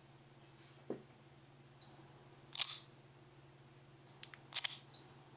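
Soft clicks and taps from an iPhone 4 in a hard plastic Incase Slider case being handled and turned in the hands: a few scattered clicks, with a small cluster near the end. A faint steady low hum runs underneath.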